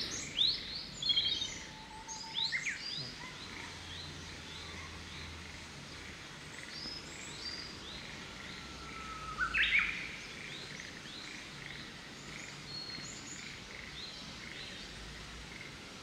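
Japanese bush warbler singing: a long low whistle that breaks into a quick higher flourish about halfway through, over repeated short high chirps from other songbirds.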